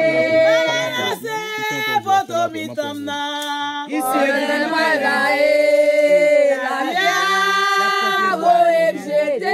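A group of voices singing a Haitian Vodou song to the lwa unaccompanied, in long held notes with short breaks between phrases.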